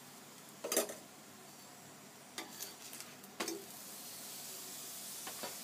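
Steel spoon and fork clinking against an iron tawa and a small steel bowl of ghee while a paratha is spread with ghee and handled, a handful of sharp clinks with the loudest about a second in. Under the clinks, a faint sizzle of the paratha frying in ghee.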